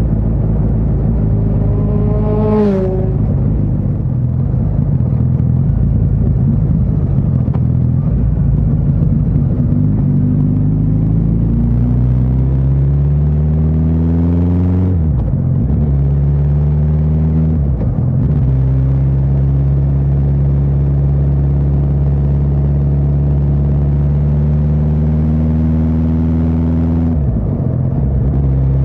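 Suzuki GSX1300R Hayabusa's inline-four engine pulling hard, its pitch climbing steadily, with three upshifts where the revs dip and climb again. There is a steady rushing noise underneath.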